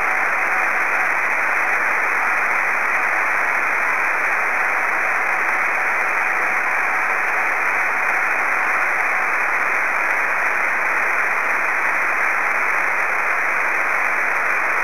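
Receiver hiss from a 2 m radio, with the faint Morse-keyed tone of the SV3BSF/B beacon on 144.485 MHz coming and going under the noise as it is reflected off a passing aircraft (aircraft scatter). The tone is heard at the start and again more weakly about six to nine seconds in.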